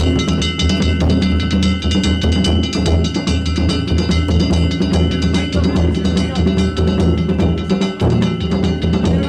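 Danjiri festival hayashi: taiko drums and small hand gongs beaten in a fast, unbroken rhythm, the gongs leaving a steady metallic ringing over the drumbeats.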